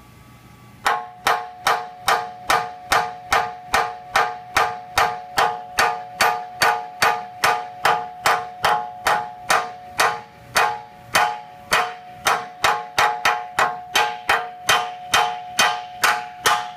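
Steady hammering on a steel truck frame rail, about three blows a second, starting about a second in. Each blow rings with a metallic tone as the bent rail is worked back into shape cold, without heat.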